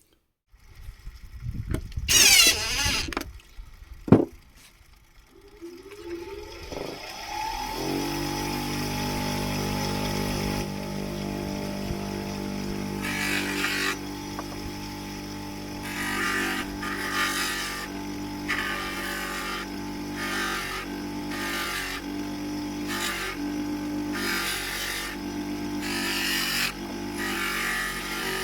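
A few handling knocks, then an electric polishing motor switched on and running up to speed, its hum rising for a couple of seconds before running steady. A small copper grease gun is then pressed against the spinning buffing wheel in repeated short passes, each heard as a hiss of friction over the motor.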